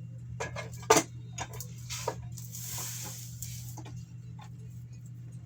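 Metal clanks and clicks from a motorcycle jack being set up and worked under a Harley-Davidson Shovelhead, with a brief hiss near the middle, over a steady low hum.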